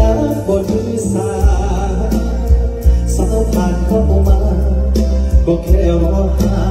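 Live band with a singer, amplified through a large SPM outdoor concert PA system, with heavy bass and regular drum beats.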